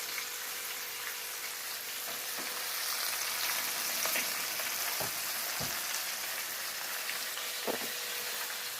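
Breaded chicken pieces deep-frying in hot oil: a steady sizzle, with a few short clicks about halfway through and near the end.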